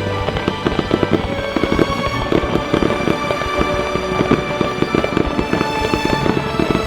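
Fireworks going off in a dense run of bangs and crackles, mixed with background music that has held tones.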